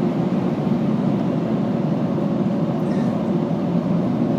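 Steady low rumble heard from inside a car cabin, even in level throughout with a faint steady hum in it.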